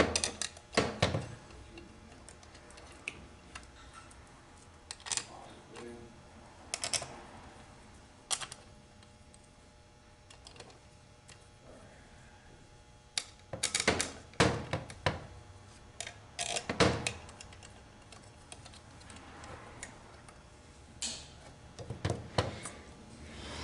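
Scattered light clicks and clinks of small metal parts and hand tools on a workbench, in irregular clusters, as bolts are fitted into an automatic transmission valve body.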